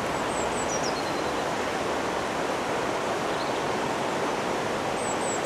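Steady rush of flowing river water. A small bird gives a short, high, falling chirp twice, once near the start and once near the end.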